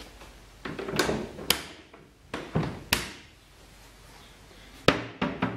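Concealed cup hinges on a wooden cabinet door being clipped onto their mounting plates and the door being swung: several sharp clicks and knocks, the loudest one near the end as the door is closed.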